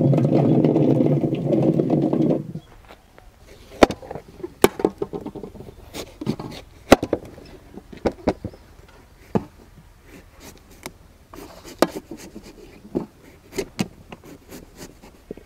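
A loud, low, pitched sound lasting about two and a half seconds, then a kitchen knife cutting the rind off a watermelon on a steel plate: sharp clicks and knocks of the blade against the rind and plate, with short scraping strokes between them.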